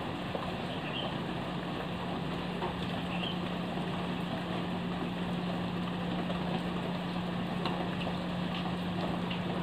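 Steady rain falling, with a few faint drips, and a steady low engine hum, like an idling motor, running under it.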